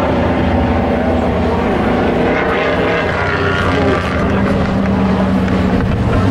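Race pickup trucks' engines running loudly as they lap a paved oval, the engine pitch rising and falling as trucks pass.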